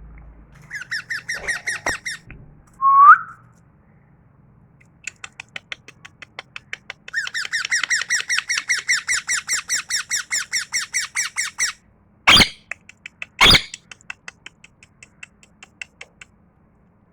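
A pet parrot calling: a run of fast chattering notes, a short loud rising whistle about three seconds in, a longer burst of rapid chatter, then two loud squawks a second apart and a few faint ticks.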